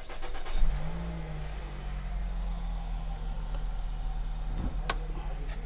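2009 Nissan X-Trail's 2.5-litre four-cylinder petrol engine turned over briefly by the starter, catching with a short rise in revs about half a second in, then idling steadily. A single sharp click near the end.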